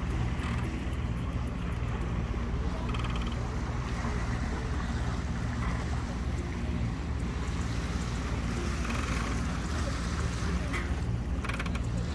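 Sailing yacht under way: a steady low drone with water washing along the hull and wind over the deck.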